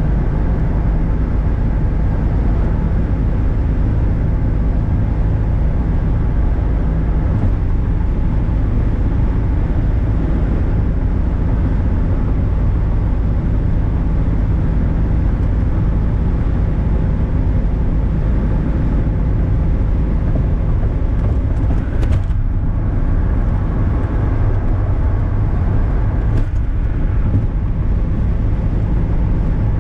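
Inside the cabin of a 1978 Datsun 280Z cruising on the highway: its straight-six engine running at an even speed under steady road and tyre noise.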